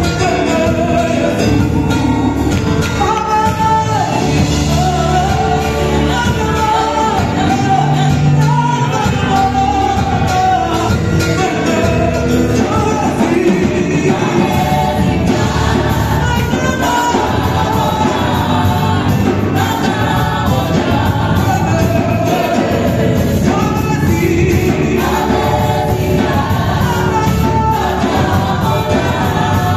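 Gospel song performed live: lead and backing singers on microphones over a drum kit and band, amplified through a PA.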